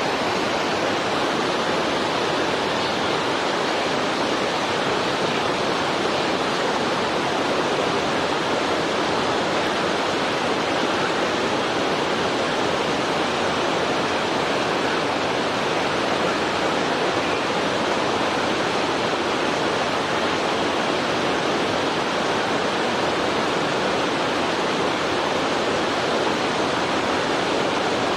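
Steady, even rushing noise, unchanging throughout, with no distinct sounds standing out.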